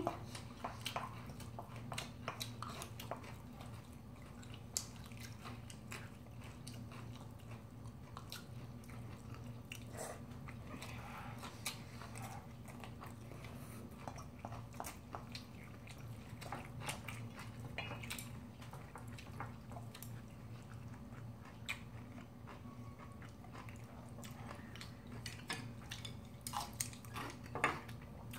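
Close-up eating sounds: chewing and biting of mixed bibimbap, with scattered light clicks of chopsticks and a plastic spoon against a stainless steel bowl and ceramic dishes, a few louder ones near the end, over a low steady hum.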